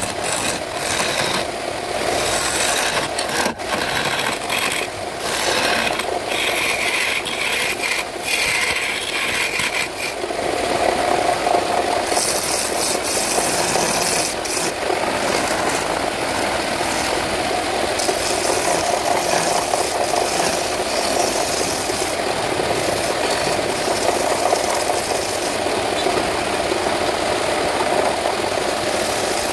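Wood lathe running while a hand chisel cuts into the spinning wooden workpiece, a continuous scraping of shavings over the lathe's motor hum; the cut is uneven for the first ten seconds or so, then steadier.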